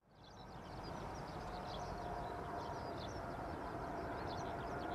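Distant steady rumble and whine of an Airbus A380-841's four Rolls-Royce Trent 900 engines at approach power on final approach. The sound fades in over the first second, with high chirps over it throughout.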